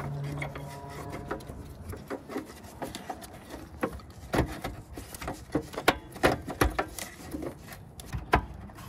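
Irregular plastic clicks, taps and rubbing of hands fitting the retaining ring onto a new headlight bulb at the back of a Mercedes W124 headlight housing. The sharpest clicks come in the second half.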